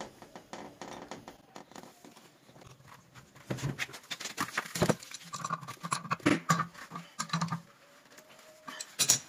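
A brass non-return valve being threaded onto an electric water heater's cold-water inlet and then tightened with an adjustable wrench. It makes a run of small metal clicks and scrapes, with knocks from the heater's plastic casing being handled. The sounds are faint at first and grow louder a few seconds in.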